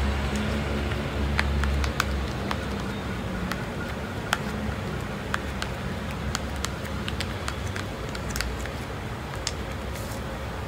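Tint brush stirring hair dye cream and developer in a mixing bowl, giving irregular light clicks and scrapes of the brush against the bowl. A steady low hum runs underneath, louder for the first two seconds.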